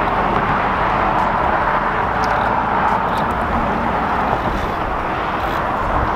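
Steady rushing outdoor background noise with no distinct events, in the manner of road traffic and wind along a shoreline.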